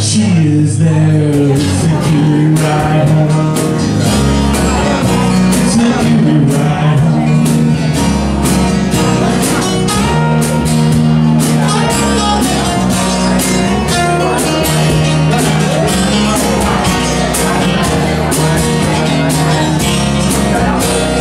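Live acoustic band playing an instrumental passage: two acoustic guitars strumming and picking over a steady beat.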